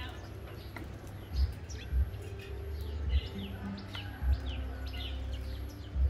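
Sparrows giving many short, quick chirps as they feed, with several dull low thumps and a low rumble underneath.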